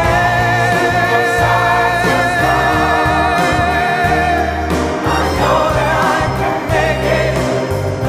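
Background pop music: sung vocals with a backing choir holding long notes over a steady bass line.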